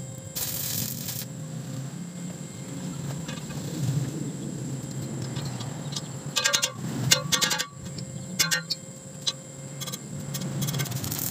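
Steel pipe and metal pieces clinking and ringing as they are handled and set in place, in a quick cluster of sharp clinks about six and a half seconds in and a couple more a second later. Near the start, a short crackling burst of stick welding.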